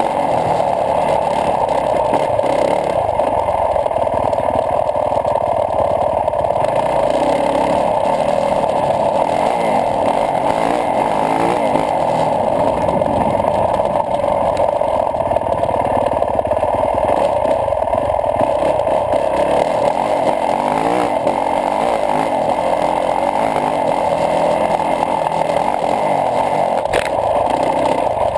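2012 Yamaha YZ450F's single-cylinder four-stroke engine running under way on a dirt track. Its pitch rises and falls as the throttle changes, mixed with steady wind noise.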